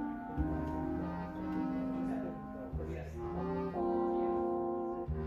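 Instrumental music carried by brass, held notes moving in steps with a low bass line.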